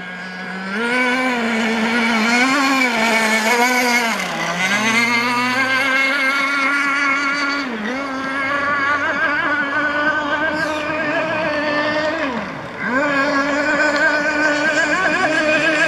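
Two-stroke engine of a radio-controlled speedboat running at high revs, its note wavering up and down as it races. The pitch dips sharply and climbs back three times.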